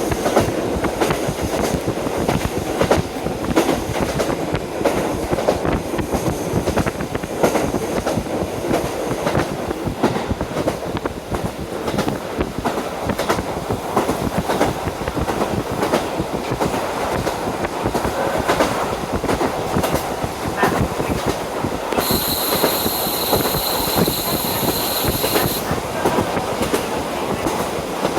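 KiHa 40 diesel railcar under way, heard from inside through an open window: steady running noise and wind, with the wheels clicking over rail joints. A high steady squeal sounds for about four seconds near the end.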